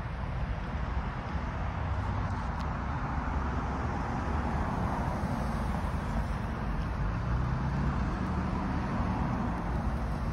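Road traffic passing over a railroad crossing: car tyre and engine noise, swelling as a car drives by about halfway through, over a steady low rumble.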